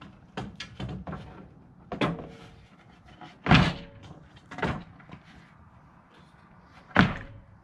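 Plywood sink top being set down and pressed into a steel swing-out kitchen frame: several knocks and thumps of board on metal, the two loudest about three and a half and seven seconds in, some with a short metallic ring.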